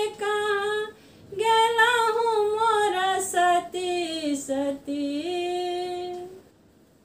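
A woman singing a Maithili prati geet, unaccompanied, in long held notes that rise and fall; the song ends with a long held note about six seconds in.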